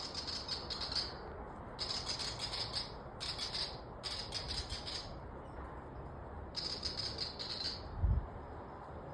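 An Australian bird gives harsh, rapid rattling scolding calls in five bursts of about a second each, as it harasses a cat. Near the end there is a dull thump.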